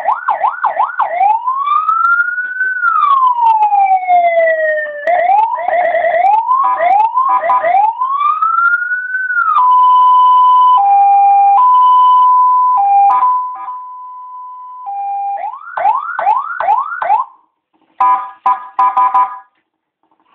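Electronic siren of a Senken lightbar (type TBD022122) cycling through its tones. It starts with a fast yelp, then a slow wail rising and falling, quicker sweeps, and a two-tone hi-lo. A steady tone, a few quick yelps and short broken bursts follow, and it cuts off near the end.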